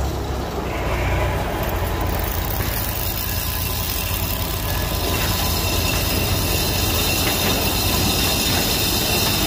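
A vehicle engine running steadily, with a constant low rumble and noise.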